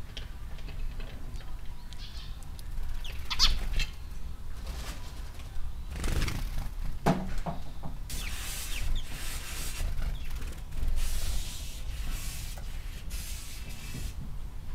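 Outdoor ambience with a steady low rumble, a few short high chirps about three seconds in, a brief rising call near the middle, and stretches of hiss in the second half.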